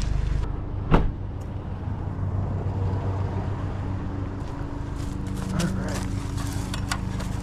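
Pickup truck running at low speed, a steady low engine hum, with one sharp knock about a second in and a few lighter clicks later.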